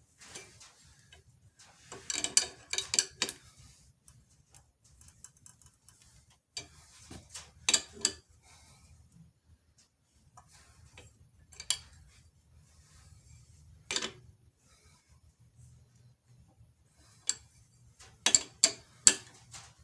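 Sharp metallic clicks in short clusters from a wrench turning the draw nut of a pilot-bearing puller, pulling the pilot bearing out of the crankshaft; a few single clicks between the clusters and a dense run near the end.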